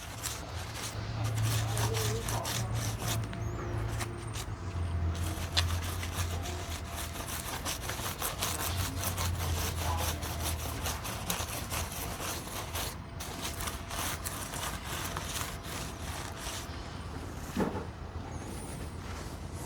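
A cloth wet with rubbing alcohol being wiped and rubbed over the tops of a pack of 18650 cells, cleaning them before spot welding. It makes a continuous scratchy rubbing, with a low hum through roughly the first half.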